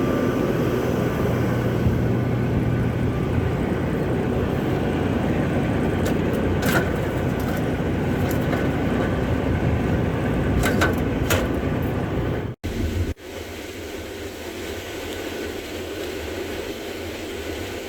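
Combine harvester running steadily, a constant mechanical din with a low hum and a few light clicks. About thirteen seconds in the sound breaks off abruptly and resumes as a quieter steady run.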